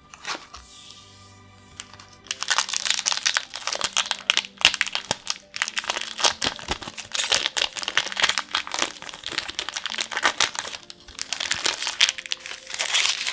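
Foil booster-pack wrapper crinkling loudly as it is handled and opened, starting about two and a half seconds in and running almost to the end.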